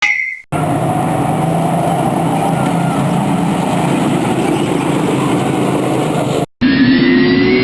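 Separate sound-effect clips butted together. A brief ringing tone comes first, then about six seconds of steady vehicle rumble with a low hum, which cuts off abruptly. Near the end a new clip starts with a rising whine.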